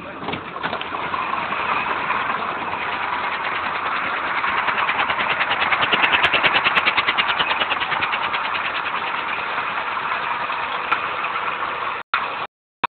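A truck's engine idling with a rapid, even pulse, heard from just outside the cab beside the front of the truck. It drops out suddenly near the end.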